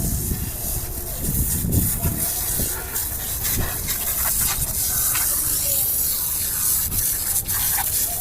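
Steady hiss of water spraying from a running pump's outlet, over a low rumble, with a few faint clicks.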